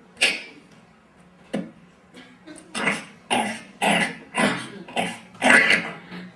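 A man making rough cough-like vocal noises into a microphone: a couple of sharp bursts, then a quick run of hacking sounds about two a second.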